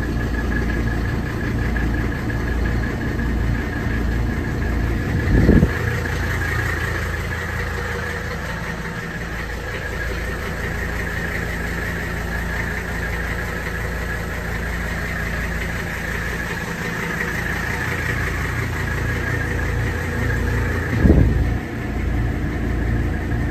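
Mercedes-Benz 300D Turbo Diesel's five-cylinder turbodiesel idling steadily at a fast cold idle just after a cold start, with a steady high whine over the engine. Two brief low thumps stand out, about five seconds in and near the end.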